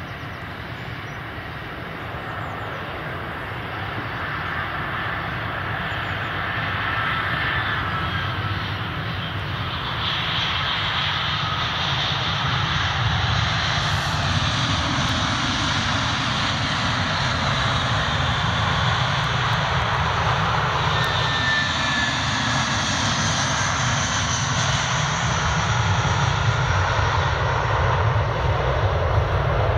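Finnair Airbus A319 jet airliner coming in to land, its engine noise growing steadily louder over the first half and then holding, with whining tones that slide in pitch.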